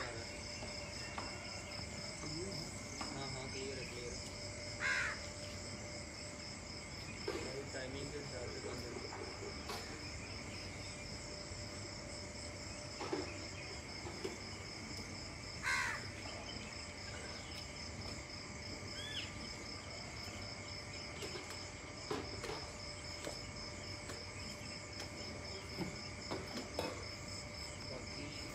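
Morning outdoor ambience: a steady high insect trill, with crows cawing now and then, the loudest calls about five and sixteen seconds in.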